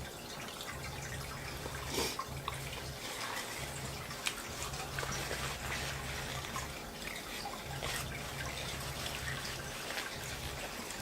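A person eating close to the microphone: chewing with small wet clicks and smacks scattered throughout. A low hum cuts in and out underneath.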